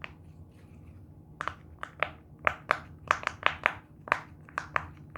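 A silicone pop-it fidget toy being pressed: a quick, uneven run of sharp pops, about two to four a second, starting about a second and a half in. The pops are loud.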